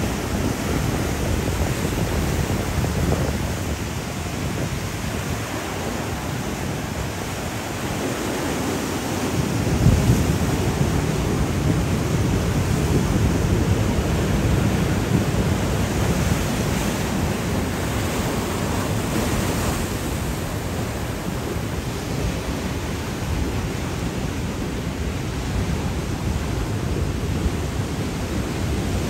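Steady rushing noise, heaviest in the low end, with a brief swell about ten seconds in.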